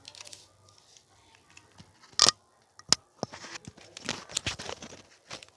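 Kitchen utensils and containers being handled: two sharp clacks about two and three seconds in, then a few seconds of rustling and scraping.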